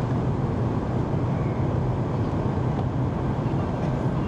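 Steady low hum of an airliner cabin, with no change in pitch or level.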